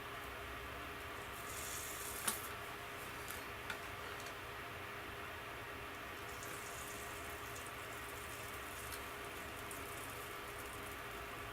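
Faint sizzling of flux under a soldering iron tip as wire is soldered onto a solar panel, coming in short spells, with a couple of light clicks about two and four seconds in, over a steady low hum.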